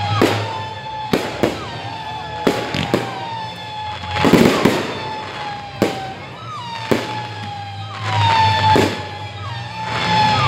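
Consumer fireworks rockets launching and bursting, with sharp bangs about once a second and a denser cluster of crackling bangs around four seconds in. Under the bangs runs a high whistling tone that drifts down in pitch and jumps back up at several of the launches.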